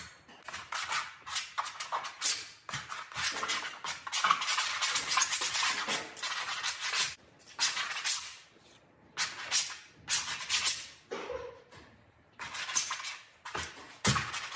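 Oil paint being worked onto canvas: a painting tool scraping and scrubbing across the canvas surface in quick, irregular scratchy strokes, in runs with short pauses between.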